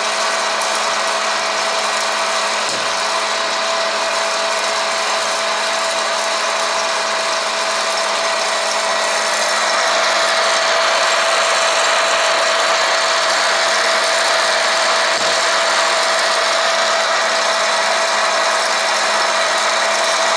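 Electric hot-air popcorn maker running: the steady whir and whine of its fan blowing hot air through the kernels as popped corn is pushed out of the chute. It gets a little louder about halfway through.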